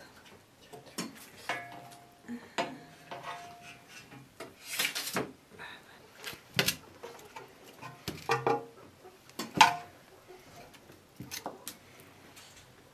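Cutlery and dishes clinking and knocking at irregular intervals. Two of the strikes, in the first few seconds, leave a brief ringing tone.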